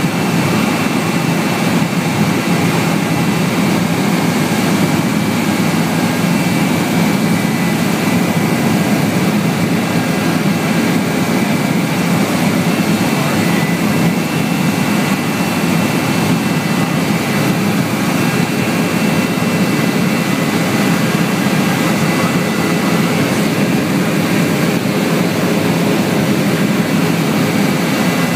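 Helicopter engine and rotor noise heard from inside the cabin in flight: a loud, steady drone with a faint thin whine above it.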